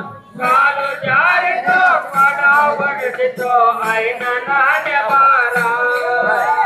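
Men singing a chant-like devotional song together, with a light regular percussion beat behind the voices.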